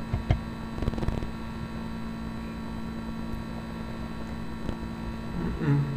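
Steady electrical mains hum on the recording, with a few short clicks in the first second or so.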